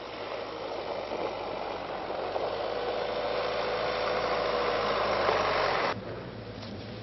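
Land Rover Freelander 2 driving on packed snow toward the microphone, its engine and tyres rising to a steady rushing noise that grows louder, then cuts off abruptly about six seconds in.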